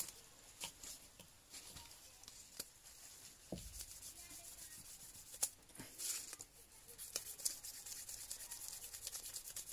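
A small hand-made metal fishing lure being rubbed by hand on 1000-grit sandpaper for the final polishing pass: faint back-and-forth scratching with scattered light clicks, quicker in two runs in the second half.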